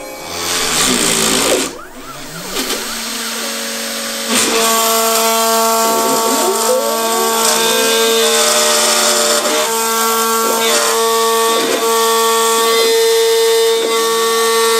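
Home-built CNC router milling white acrylic: its spindle motor gives a steady whine, while the stepper motors driving the axes sweep up and down in pitch as the head speeds up and slows. The whine settles in about four seconds in, after a louder noisy rush in the first two seconds.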